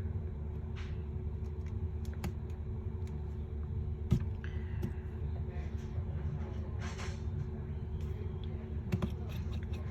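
A steady low hum with a few faint steady tones above it, and scattered small clicks and taps, one sharper click about four seconds in, from handling a phone and small tools on the bench.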